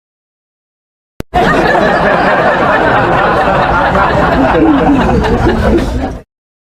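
Laugh-track sound effect: a crowd laughing and chuckling, starting about a second in after a short click and cutting off abruptly near the end.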